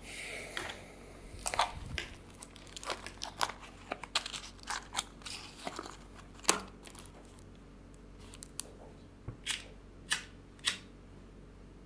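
Paper crinkling and tearing as a cigarette is handled, a run of small sharp rustles and clicks. Near the end, four sharp clicks as a lighter is struck.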